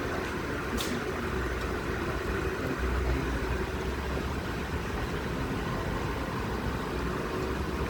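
A motor vehicle engine idling steadily with a low rumble, and a brief sharp click about a second in.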